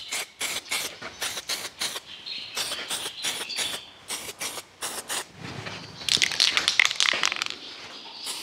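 Aerosol spray-paint can in use: a run of short rattling clicks from the mixing ball in the can, and a stretch of spray hiss about six seconds in as paint goes onto the loader bracket.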